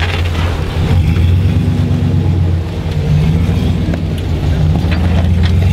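Jeep YJ's engine running under load as it crawls up a steep rock ledge: a steady low engine note that dips and rises slightly in pitch.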